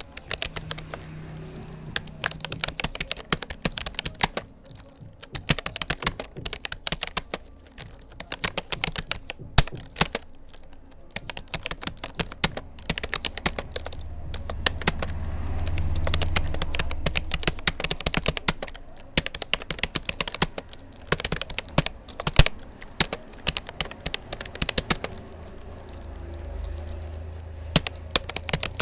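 Rapoo computer keyboard being typed on steadily: rapid, irregular key clicks with brief pauses between bursts of words. A low rumble swells and fades in the background around the middle and again near the end.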